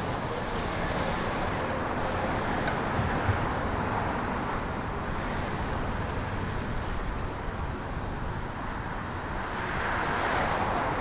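City street traffic: a steady wash of passing cars and road noise, swelling as a vehicle passes close near the end.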